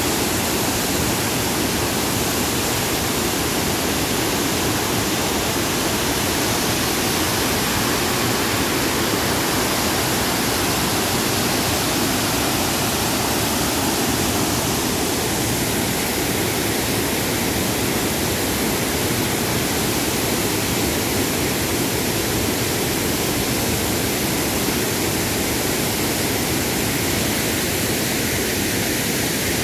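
Overflowing dam: water pouring down the concrete spillway face into the pool below in a steady, unbroken rush.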